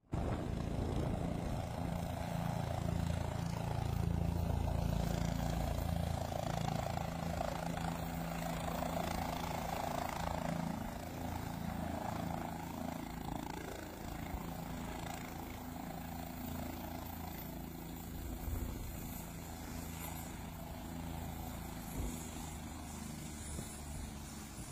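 Helicopter's rotor and engine running as it descends to land, kicking up dust. Loudest in the first half, easing off somewhat after about eleven seconds.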